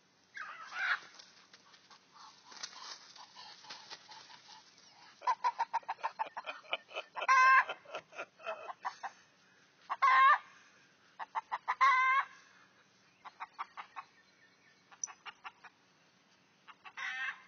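Rooster clucking in quick runs and letting out several loud squawks, agitated while a duck tries to mount it.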